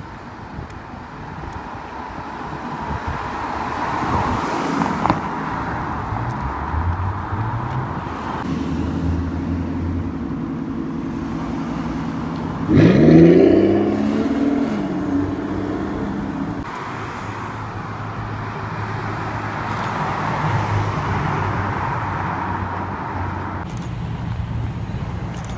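Street traffic passing, with a sports car's engine running low as it rolls up; about halfway through, the Aston Martin Vanquish convertible's V12 gives a short, loud rev that rises sharply in pitch before falling back to a lower run as it pulls away. Near the end another car's engine and tyres approach.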